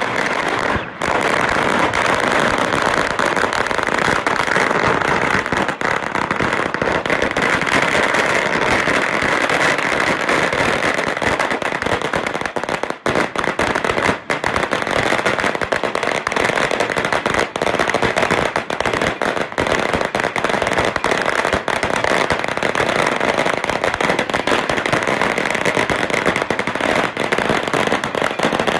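A long string of firecrackers going off: a dense, rapid, unbroken crackle of sharp bangs that starts suddenly and keeps up without a pause.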